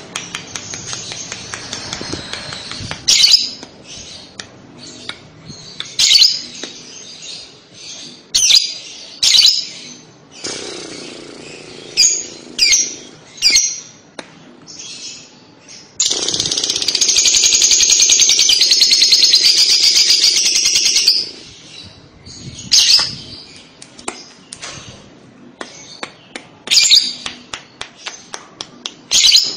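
Female Fischer's lovebird calling: short, sharp high chirps scattered throughout, and about halfway a long, fast chattering trill lasting about five seconds, the lovebird's 'ngekek' song.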